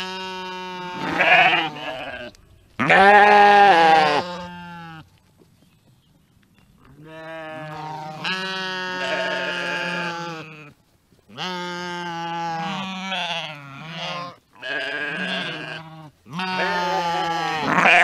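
Sheep bleating over and over: about six long calls in a row, each one to three seconds long, with short pauses between them.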